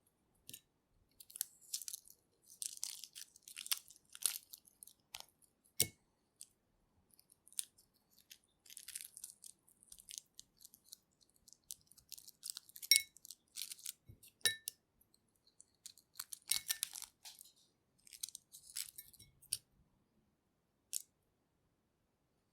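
Shell of a hard-boiled egg being peeled by hand: repeated bursts of fine crackling and crunching as shell fragments break away, with a few sharp clicks in between.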